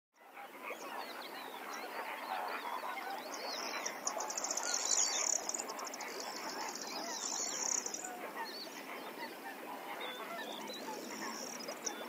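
A large flock of birds calling, many short calls overlapping into a dense chorus that fades in at the start. A fast, high-pitched pulsing trill joins in from about three seconds in for several seconds, and again near the end.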